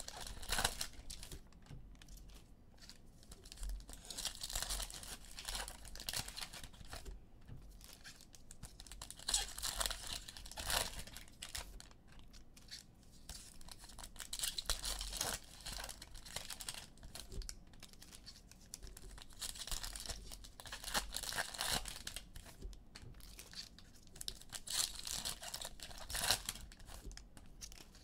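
Foil trading-card pack wrappers being torn open and crinkled by hand, in bursts of crackling every few seconds.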